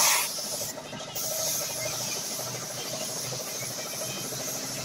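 Compressed-air paint spray gun hissing steadily while spraying a motorcycle fuel tank, with a louder burst of hiss right at the start and a brief drop about a second in.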